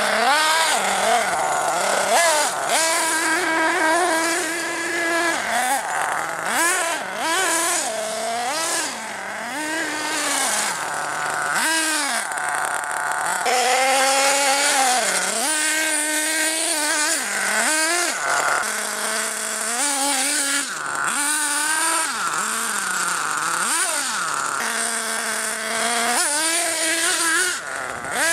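Nitro Star F4.6 glow engine of a 1/8-scale HPI Trophy truggy revving up and down over and over, its pitch rising and falling every second or two as the throttle is worked.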